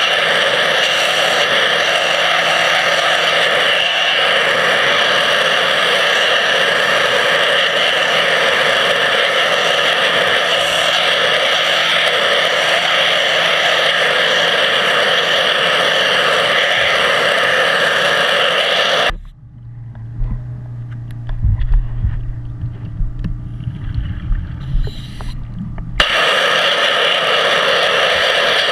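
Underwater pressure-washer jet running steadily, a loud even hiss with steady tones, as it blasts a stainless steel intake pipe clean. About two-thirds of the way through, the jet cuts out abruptly for several seconds, leaving a low hum and knocking, then starts again suddenly.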